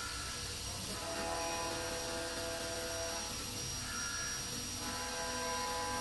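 Steady electric motor hum and whine, several tones shifting in pitch every second or two.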